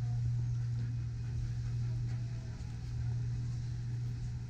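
A steady, low mechanical hum, like a motor running without change.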